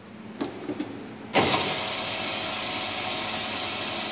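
Two light clicks, then about a second and a half in the Pilous ARG 250 metal-cutting band saw starts up abruptly and runs steadily, with a constant high whine over the machine noise.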